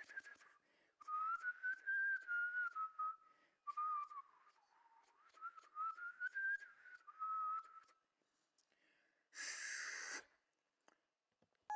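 High, thin whistling that wavers up and down in pitch in short phrases, over faint clicks. Near the end comes a short hissing burst of about a second.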